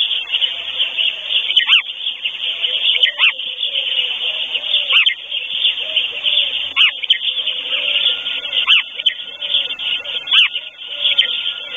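A chorus of songbirds chirping densely. Through it, a clear downward-sliding call repeats every second or two, and low arched notes repeat in quick succession.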